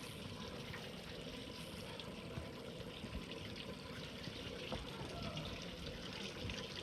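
Steady running water.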